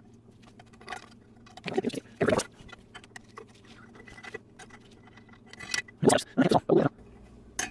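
Metal parts and hand tools knocking and clicking against the outboard gear case as gears are worked into place, with a cluster of knocks about two seconds in and another about six to seven seconds in.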